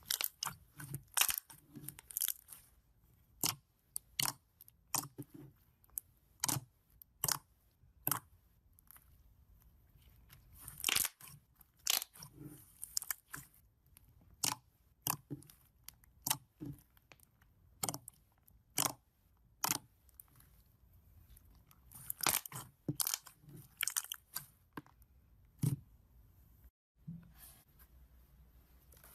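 Slime being pressed and squished by hand, giving a run of sharp pops and clicks at about one or two a second.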